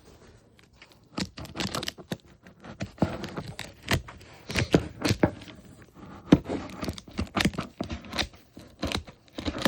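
Scissors cutting and scraping at packing tape on foam packaging, with the foam and cardboard rustling: a run of irregular scrapes, snips and clicks.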